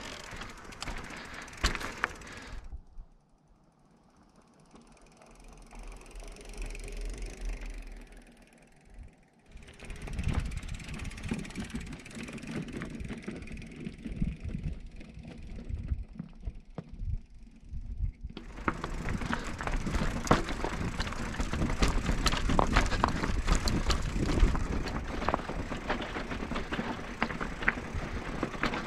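Fuji Blackhill Evo e-mountain bike riding down a rocky trail: tyres going over stones with the chain and frame rattling in dense clicks. It goes quieter for several seconds near the start, then the rattling builds again and is loudest and densest from about two-thirds of the way in.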